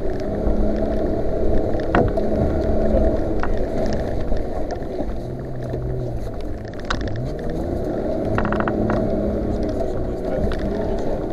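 Off-road vehicle's engine running under load through a muddy water crossing, its pitch rising and falling as it pulls through, with water washing over the body and a few sharp knocks from the chassis.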